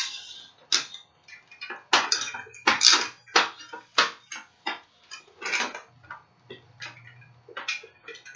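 An irregular series of sharp knocks and rattles, like small hard objects being clattered together, about one or two a second.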